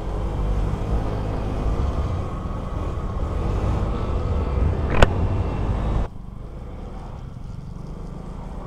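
Motor scooter engine running steadily under way, with wind and road rush over it. There is a single sharp click about five seconds in, and the rushing noise drops off suddenly about a second later.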